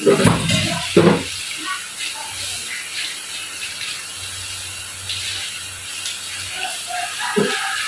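Kitchen tap running steadily into a stainless steel sink, the water splashing over leafy greens as they are rinsed under it by hand. A few louder sounds come in the first second.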